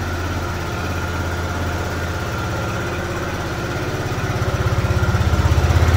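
SYM Cruisym 300 scooter's single-cylinder four-stroke engine running steadily at idle, getting louder toward the end. It is run to turn the gears and circulate freshly changed rear transmission oil.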